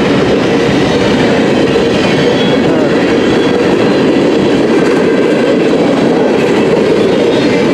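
CN M301 freight train rolling past close by: a loud, steady rumble and rattle of railcar wheels on the rails.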